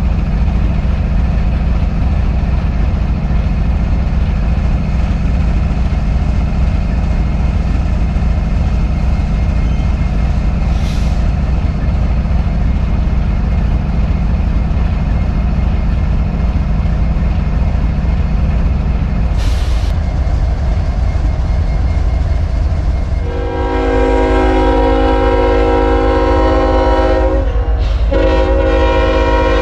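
Diesel locomotive engine running steadily with a deep, even rumble. About three-quarters of the way through, a locomotive air horn sounds several notes at once and is held long, with one short break near the end.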